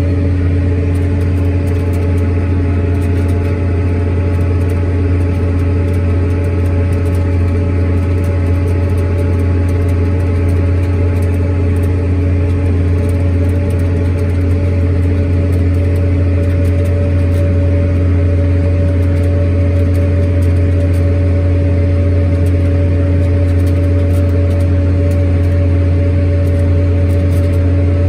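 Tractor engine running at a steady speed while the tractor drives, heard from inside the cab. It is a constant low drone with a few steady humming tones above it, unchanging throughout.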